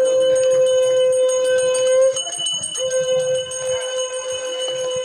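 Bicycle bell rung continuously with rapid strikes, giving a steady ringing with a fast clicking rattle; it stops briefly about two seconds in, then rings again.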